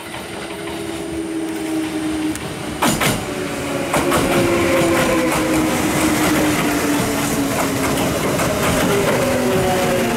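Kintetsu electric commuter train running in alongside, getting louder as it nears: its motors give a whine of several tones that slowly falls in pitch as the train slows, over wheel and rail noise, with a couple of sharp clacks about three and four seconds in.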